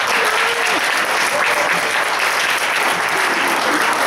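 Audience applauding steadily, with a few voices over the clapping.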